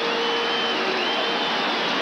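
Large stadium crowd cheering in a steady, sustained roar, with a couple of high whistle-like tones over it.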